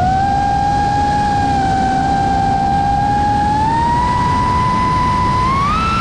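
iFlight Nazgul5 Evoque FPV quadcopter's brushless motors whining as throttle is added; the pitch climbs in steps, most steeply near the end. Steady rushing wind noise runs underneath.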